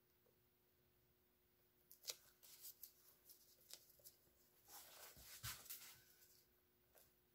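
Faint hand-handling noises from the painting work: a scatter of light scrapes, rustles and taps in two short clusters, starting about two seconds in, with one last tap near the end.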